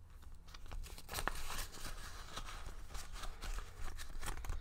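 Rustling of a clear plastic cash envelope and paper money being handled in a ring binder, with scattered light clicks and taps.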